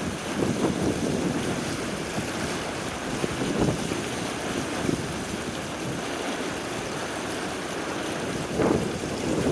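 Gusty wind buffeting the microphone in irregular swells, with a stronger gust near the end.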